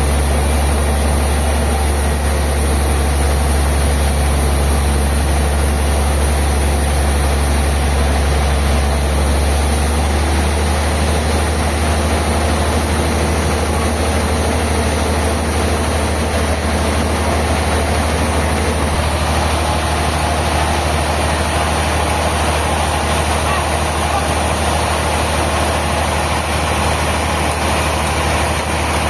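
Heavy sawmill machinery running steadily, a constant low engine drone with a wash of mechanical noise over it; the sound shifts slightly about ten seconds in.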